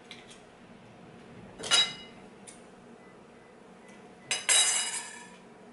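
Seafood tools clinking against a bowl twice: a short clink nearly two seconds in, then a longer rattling clink with a brief ring about four and a half seconds in.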